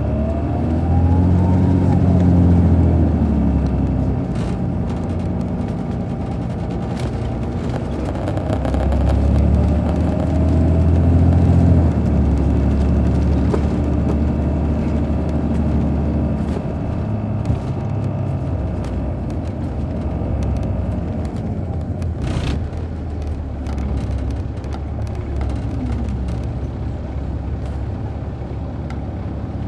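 MCI D4500CL coach's Caterpillar C13 diesel engine and Allison B500 automatic transmission heard from inside the bus under way. The engine pulls harder with a rising whine that drops away as the transmission upshifts, about two seconds in and again about twelve seconds in, then settles into a steadier cruise.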